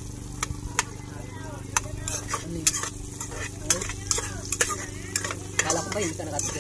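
Metal ladle stirring in a metal cooking pot, clinking irregularly against its sides and bottom, over the sizzle of ginger and garlic sautéing.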